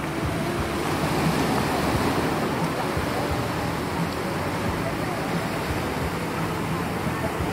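Sea waves breaking and washing up a sandy beach, a steady rush of surf, with faint voices of people in the water.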